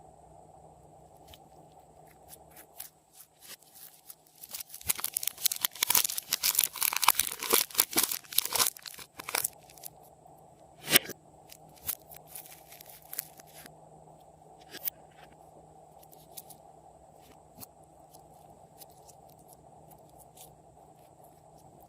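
Slime being worked by hand, making crackling pops and clicks: a dense, loud run from about five to nine seconds in, then scattered single clicks.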